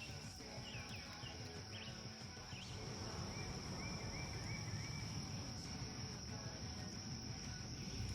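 Insects, crickets or similar, making a steady high-pitched drone. A few short bird chirps come in the first seconds, then a quick run of about six chirps in the middle, over a low rumble.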